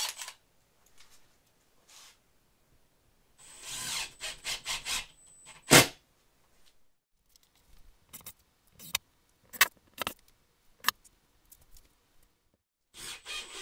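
Cordless screw gun driving screw-in acoustic-panel anchors into a plywood wall, its motor whining in a short burst about three to five seconds in. A sharp loud knock follows, then scattered clicks and taps of handling.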